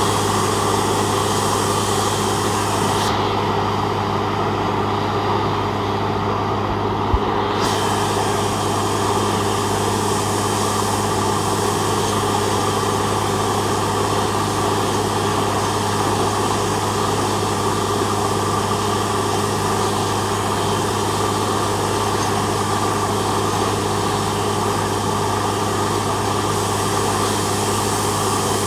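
Truck-mounted borewell drilling rig running steadily, a constant machine drone. There is a single short click about seven seconds in.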